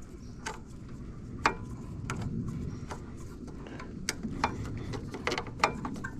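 Irregular sharp metallic clicks and taps over a low rumble of handling, as a tool works loose the last mounting bolt of an e-bike's mechanical disc brake caliper.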